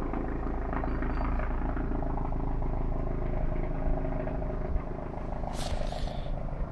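Distant air ambulance helicopter, a Eurocopter-type, with a steady rotor thrum as it descends low over fields, apparently to land. A short hiss comes near the end.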